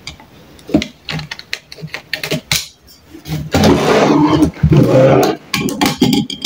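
Light clicks and taps from a utility knife and handling on a tabletop. About three and a half seconds in comes a long, loud rasping rip of wide adhesive packing tape pulling free, followed by a few more clicks.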